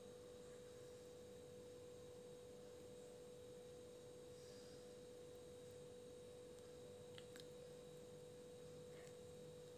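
Near silence: room tone with a faint, steady pure tone held at one pitch throughout.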